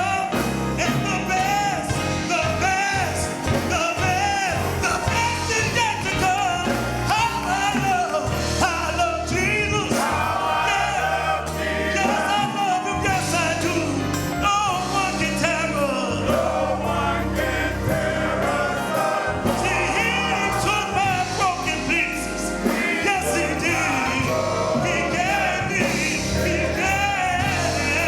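Gospel song: voices singing over instrumental accompaniment with a steady bass line.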